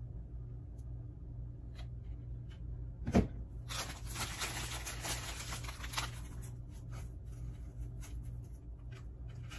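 A single knock about three seconds in, then about two seconds of crinkly rustling from a clear plastic bag of dried craft moss being handled, followed by a few light clicks and taps.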